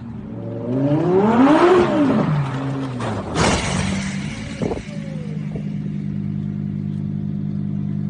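Lamborghini Huracán's V10 revving hard up and back down, then a sharp crash about three and a half seconds in as the car hits a metal container. After the crash the engine idles steadily.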